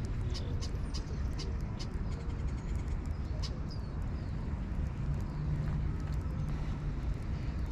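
Wind rumbling on the microphone, with small birds giving many short, high chirps throughout.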